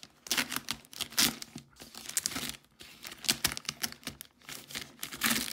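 An inner cardboard box being cut and torn open: an irregular run of ripping, scraping and crinkling packaging noises.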